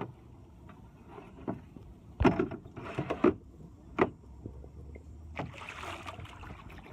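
A few sharp knocks and splashes of water around a small boat, with a longer rushing splash about five and a half seconds in.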